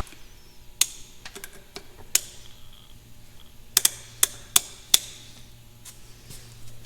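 Tools and metal parts being handled on a workbench: scattered sharp clicks and light clinks, a cluster of them about four to five seconds in, over a faint low steady hum.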